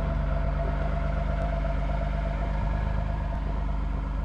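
Cummins 5.9-litre inline-six turbo diesel in a 2005 Dodge Ram 3500 idling steadily just after a cold start at 0 °F, with an even, rapid diesel pulse.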